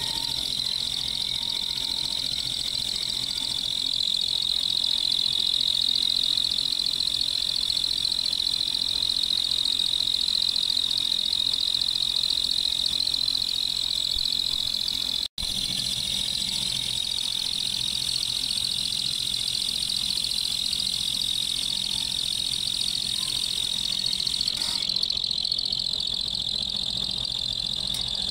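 Vertical band saw cutting steel plate: a steady high-pitched squeal from the blade in the cut, which drops out for an instant about halfway through.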